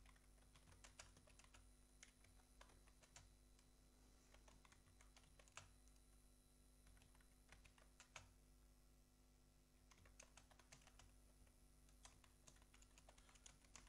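Faint typing on a computer keyboard: irregular keystrokes in short runs, with brief pauses between them.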